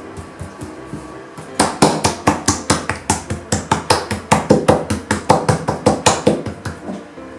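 Hands patting and slapping balls of dough flat on a metal-topped table: quick, sharp slaps about four or five a second, starting about a second and a half in and stopping near the end.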